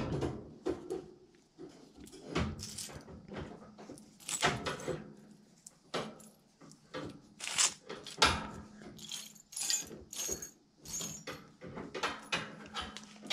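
Loose metal screws and nails clinking and rattling as a hand rummages through a pile of them, in irregular clusters of clatter.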